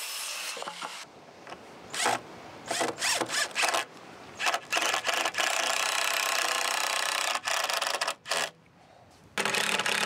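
Wood being cut with a saw: a few short scraping strokes, then one long steady cut of about three seconds, and a last short stroke near the end.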